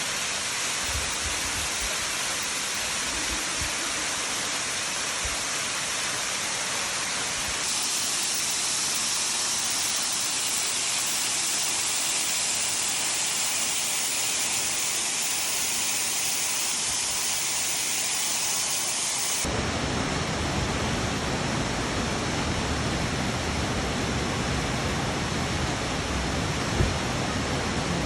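Waterfall: a steady rush of falling water. The tone shifts abruptly twice, turning brighter about eight seconds in, then deeper and fuller about twenty seconds in.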